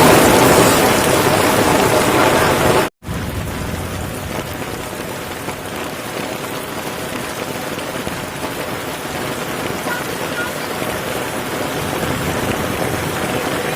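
Rain falling in a steady hiss, heavy at first; about three seconds in the sound cuts out for a moment and comes back as lighter, quieter rain.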